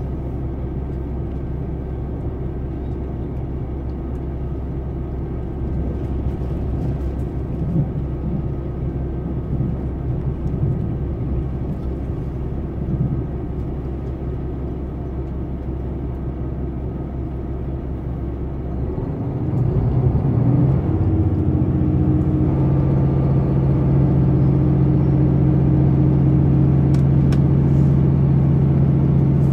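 Running noise heard inside a JR Hokkaido Super Hokuto diesel limited express train: a steady rumble. About twenty seconds in, the diesel engine's note rises and settles into a louder, steady hum as it powers up.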